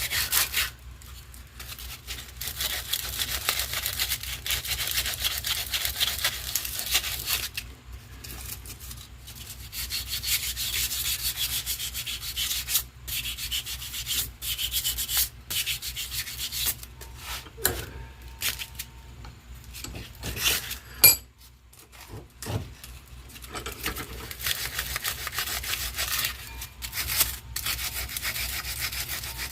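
Sandpaper rubbing on a small homemade wooden radio knob in stretches of scratchy strokes with short pauses, taking off marking and rough spots. A single sharp knock about two-thirds of the way through.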